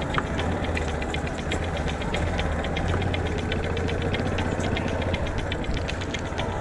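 LML Vespa scooter engine running steadily under way, a constant low hum with a fast, even ticking over it.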